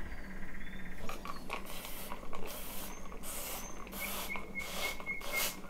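Hand-pump spray bottle misting water: a run of short hissing squirts, about two a second, starting about a second and a half in.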